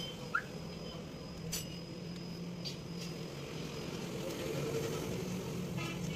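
A few light clicks and knocks of plastic car side-mirror housing parts being handled, over a steady hum of traffic.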